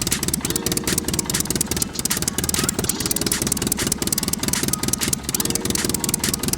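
Small homemade mini diesel engine running steadily, its firing a fast, even train of knocks, about a dozen a second.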